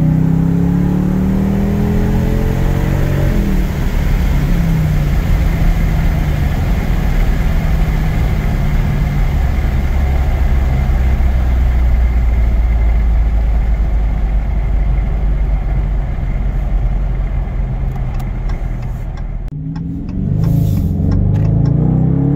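2022 Dodge Challenger R/T's 5.7-litre HEMI V8 on its stock exhaust, heard from the cabin with the windows open. It revs up under acceleration in the first few seconds, then cruises with a steady rumble under wind and road noise, and revs up again near the end.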